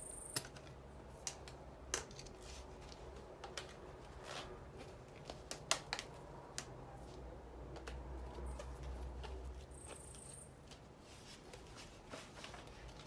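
Scattered sharp clicks and knocks of shelving-unit posts and shelves being handled and fitted together, a few sharp knocks and lighter ticks over a low steady background hum.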